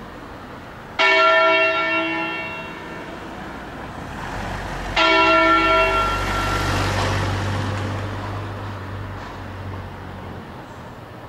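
Two single strokes of a large Angelo Ottolina (1947) church bell, about four seconds apart, each ringing out clear and fading slowly, as bells are struck one by one in a Bergamo-style 'concerto' peal. A low hum lingers under the second stroke.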